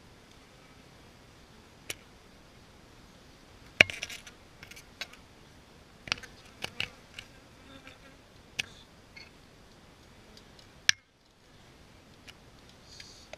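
Honey bees buzzing around the microphone, with a scattering of sharp clicks and ticks, the loudest about four seconds in and another near eleven seconds.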